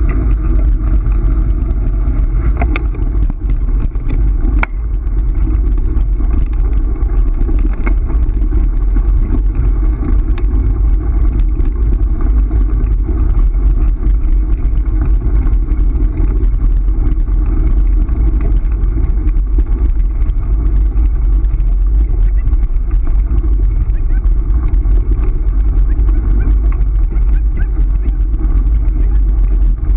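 Steady, loud rolling rumble of a scooter's tyres on a gravel road, mixed with wind buffeting the mounted microphone, with a few sharp clicks in the first few seconds.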